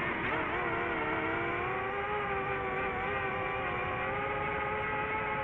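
DJI FPV quadcopter's motors and Master Airscrew Ludicrous propellers whirring in flight. It is a steady whine whose pitch climbs slightly over the first couple of seconds and then holds.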